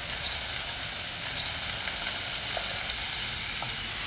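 Mixed mushrooms and chopped onion frying in olive oil in a stainless steel pan, a steady sizzle.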